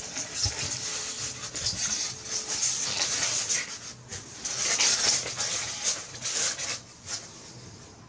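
Cloth rustling and rubbing in uneven spells as the painted fabric is shifted and smoothed over the stamp laid beneath it. The rustling stops about seven seconds in.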